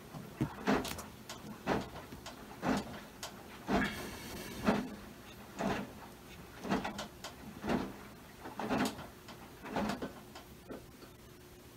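Maytag washing machine washing a load, the water and blanket swishing in an even rhythm of about one stroke a second over a faint steady hum.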